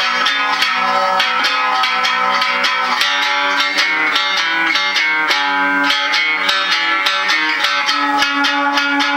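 Homemade fretless crutch guitar with a cigar-box body and piezo pickup, played through an amplifier turned down low: a steady run of plucked notes.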